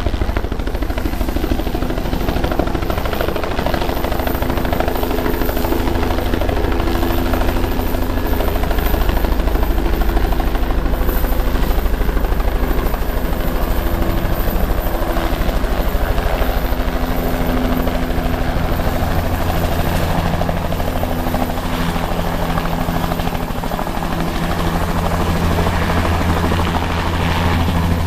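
Medical evacuation helicopter running loud and close, its rotor beating rapidly and evenly under a steady turbine whine as it comes in to land.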